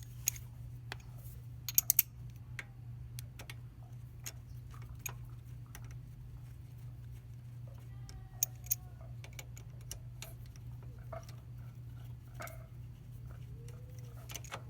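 Scattered metallic clicks and clinks of hand tools (Allen key and wrench) against the motorcycle's rear-set bolts and parts as they are worked loose, over a steady low hum.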